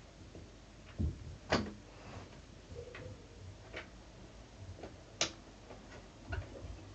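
A handful of light, scattered clicks and knocks of handling, irregularly spaced, the sharpest about a second and a half in and again about five seconds in.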